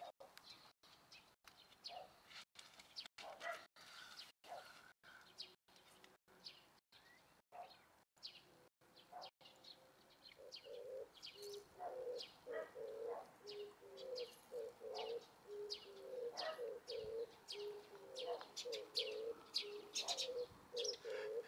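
Birds calling: a dove cooing over and over in a steady rhythm from about halfway on, with small birds chirping high throughout.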